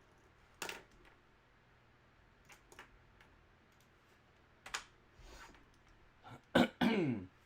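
A few scattered sharp clicks of a computer keyboard and mouse. Near the end comes a short, loud sound that falls steeply in pitch.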